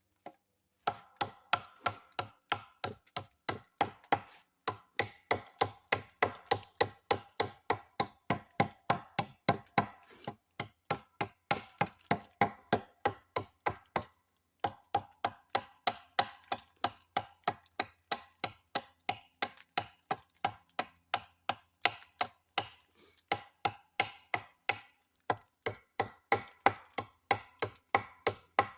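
Baker "Roughie" chopping knife striking into wood again and again at a steady pace, about two to three chops a second, with a short break about halfway through.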